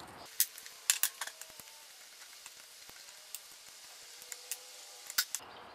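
Small metal clicks and ticks from a ball-end Allen key working the flat-head cap screws of a vise cover plate, and the loosened screws being set down on a wooden bench: a few sharp clicks in the first second, scattered lighter ticks, then two clicks near the end.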